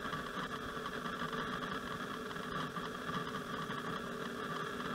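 Steady electrical buzz from the high-voltage induction coil driving a glowing Geissler tube, holding several fixed pitches at once without change.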